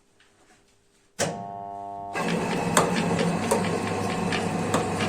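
A motor-driven bread-making machine switches on about a second in with a steady hum. It then runs louder with a noisy mechanical clatter and a sharp knock every second or so.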